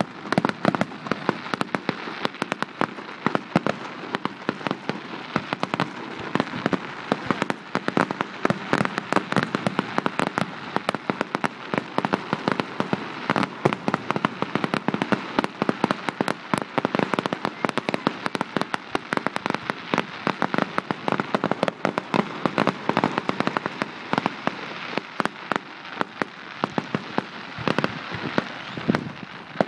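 Fireworks going off in a dense, continuous run of sharp cracks and pops, many a second, without a break.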